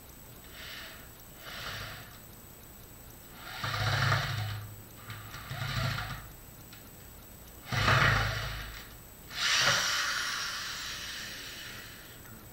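A power tool run in six short bursts with gaps between them, the last one longer and trailing off over about two seconds.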